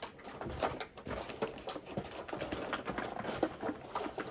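Cardboard box and plastic tray of a boxed action figure being handled: a quick run of small clicks, taps and scrapes.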